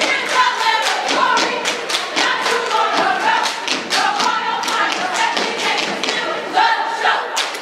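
Step-dance routine by a line of performers: feet stomping and hands clapping in a quick, steady beat of about four strokes a second, with voices shouting and calling over it.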